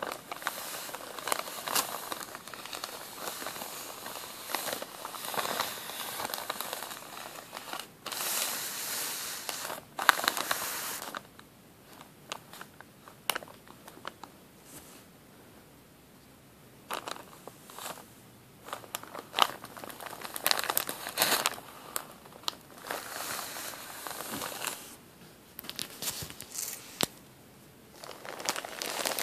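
A plastic bag packed with cotton balls is pressed and rubbed by fingers, crinkling and crackling in irregular bursts. Quieter pauses hold only scattered small clicks.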